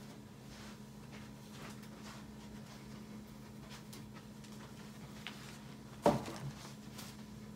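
Low steady hum with faint small ticks. About six seconds in comes one short vocal sound that falls sharply in pitch, then a fainter one.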